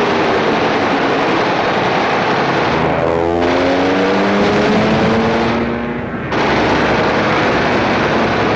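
Fighter aircraft engine running loud with rapid machine-gun fire, laid over strafing footage. About three seconds in, the engine pitch sweeps down and then climbs again. It dips briefly and cuts back in suddenly a little after six seconds.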